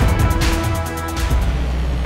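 Background music with a steady beat and sustained tones over a deep bass.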